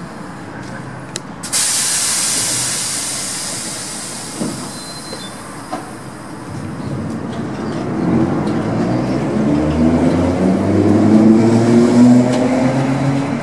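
Old suburban electric train at a platform: a sudden loud hiss of compressed air about a second and a half in, fading over several seconds. Then the train moves off, with a low whine rising in pitch and growing louder as it speeds up.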